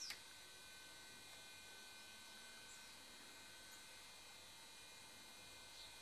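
Near silence: a steady electrical hum from the recording. There is a sharp click right at the start, and a couple of faint, short, high falling chirps later on.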